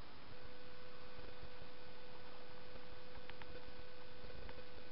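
Freight train of tank cars rolling past: a low rumble under a steady humming tone that comes in just after the start, with a couple of sharp clicks a little past halfway.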